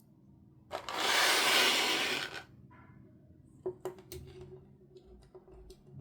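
Toy packaging being handled: a rasping rub or tear lasting about a second and a half, then a few light clicks and taps.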